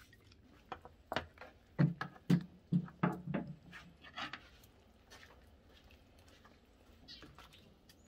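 A domestic animal calling in a quick run of six or seven short, loud calls from about a second in, followed by a few fainter ones.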